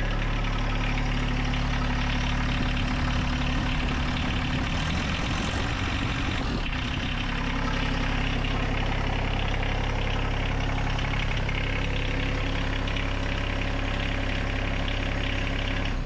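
John Deere 1025R compact tractor's three-cylinder Yanmar diesel engine running steadily at idle, with no loose rattles from the newly remounted air cleaner.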